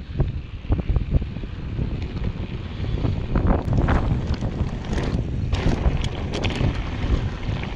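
Wind buffeting the microphone while a mountain bike rides over rough, rocky trail, with a steady low rumble and irregular sharp knocks and rattles from the bike.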